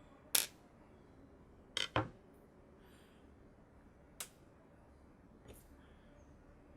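Sharp clicks and clinks of small hard objects being handled, about five in all, with a quick double click about two seconds in.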